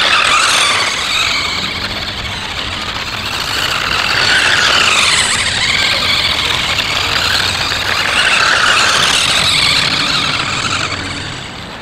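Toy RC quad bike's small electric drive motor and plastic gears whining, the pitch rising and falling repeatedly as it speeds up and slows.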